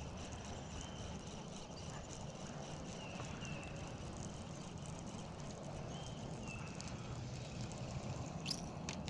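Faint steady outdoor background noise on open water, with a short two-note chirp that comes back every few seconds.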